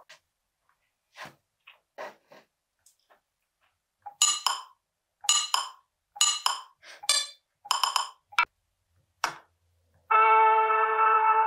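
Nothing Phone (2)'s speaker playing short electronic sound samples from the Glyph Composer app as its pads are tapped: a few faint sounds at first, then a quick run of short bright blips, mostly in pairs, from about four seconds in, and a loud held buzzing tone starting near the end.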